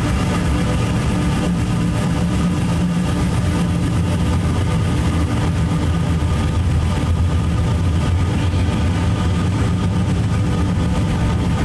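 Dark ambient drone music: a steady, dense low drone of held tones under a layer of hiss, with no beat and no change.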